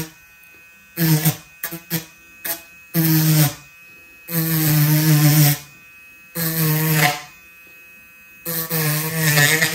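Cordless rotary tool with a small sanding drum grinding into polystyrene foam: a buzzing note each time the drum bites in, about five passes of half a second to a second, with the motor running quietly in between.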